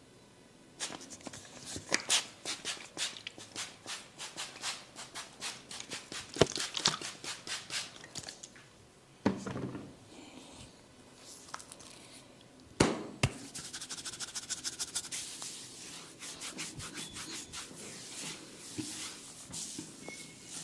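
Hands rubbing in quick, repeated strokes over skin and hair during a massage. The rubbing pauses in the middle, where there are two sharp clicks close together.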